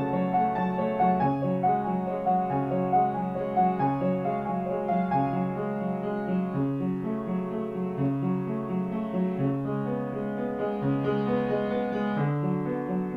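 Piano music, an original composition, with short notes repeating in a steady, flowing rhythm.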